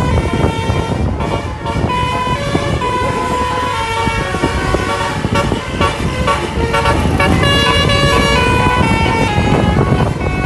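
Multi-tone 'telolet' bus horn playing a melody of held notes that step up and down in pitch, over a steady low rumble.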